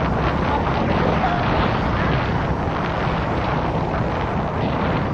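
Wind buffeting the microphone: a steady rushing noise with a low rumble underneath.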